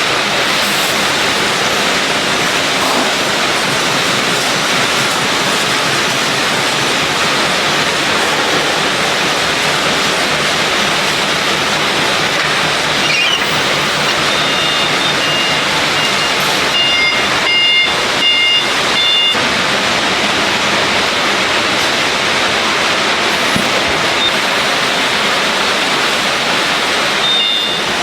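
Filter-production machinery running with a loud, steady hiss. A few short high tones sound just past the middle and again near the end.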